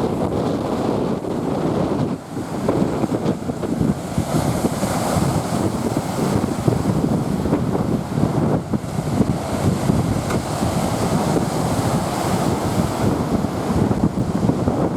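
Strong wind buffeting the microphone in a dense, fluttering rush, over waves breaking on a lake shore, with a brief lull about two seconds in.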